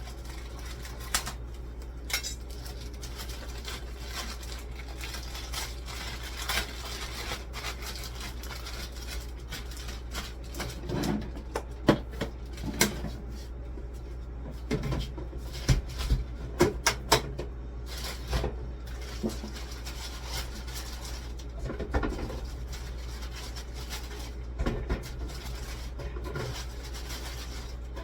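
Scattered clinks, clacks and knocks of dishes and containers being handled, over a steady low hum.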